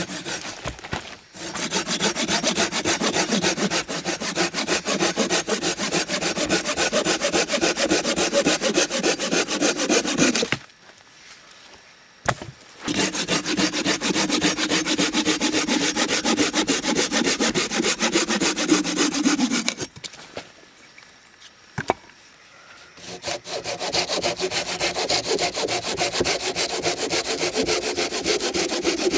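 Hand saw cutting through a dry dead branch with fast back-and-forth strokes, in three runs broken by short pauses about ten and twenty seconds in.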